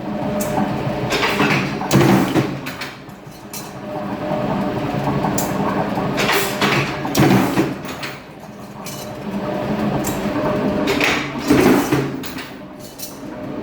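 Sheet-metal duct corner-making machine running with a steady motor hum. A loud metallic clatter of the sheet being worked comes round about every four to five seconds, three times.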